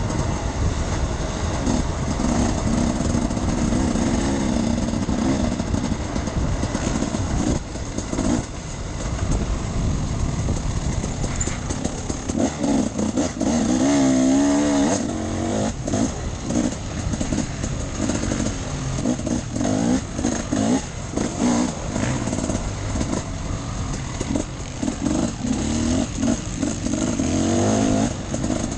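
Off-road enduro motorcycle engine running as it is ridden, its pitch rising and falling with the throttle, most sharply in a quick wavering rev about fourteen seconds in.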